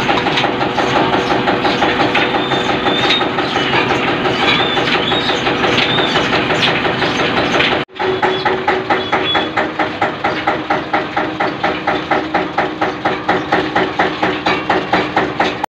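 Beaten-rice (poha) mill machinery running: a stationary engine turning the line shaft, belts and pulleys, a steady mechanical clatter with a fast regular beat. It breaks off for an instant about eight seconds in.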